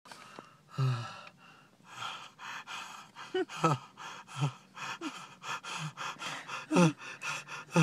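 A man panting in rapid forced breaths, about three a second, to hyperventilate away his hiccups. The breathing is broken by repeated hiccups, short voiced yelps that drop in pitch. The loudest hiccups come about a second in and near the end.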